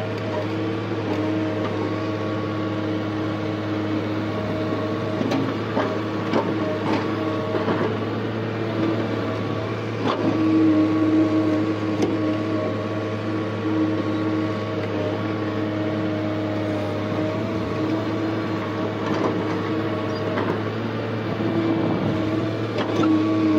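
A JCB JS175 excavator's diesel engine and hydraulics run with a steady drone while it digs soil. The drone gets louder as the boom works and lifts a load, and a few knocks and clunks of the bucket and linkage come in the middle.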